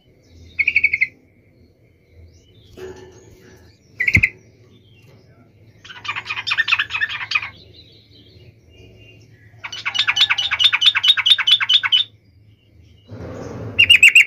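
Caged yellow-vented bulbul calling and chattering: a few short clear notes, then two bursts of rapid bubbling chatter, the second about two seconds long, and a loud call near the end. A single knock about four seconds in, and a rustling noise just before the last call.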